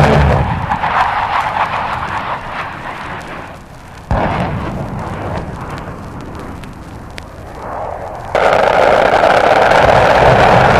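Vintage vinyl recording of military jet aircraft and exploding ordnance. A loud roar fades away over a few seconds, a sudden sharp blast hits about four seconds in and dies down, and a loud steady roar cuts in abruptly near the end. Record surface pops and crackle come through in the quieter middle stretch.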